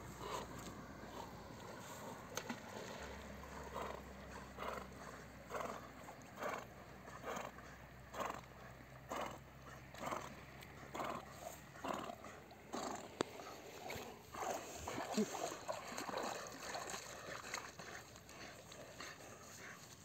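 A dog breathing hard in short puffs as it swims, about one breath a second, fairly faint.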